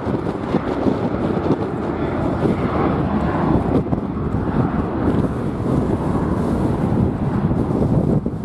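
Strong wind buffeting the microphone: a dense, fluttering rumble that stays loud throughout.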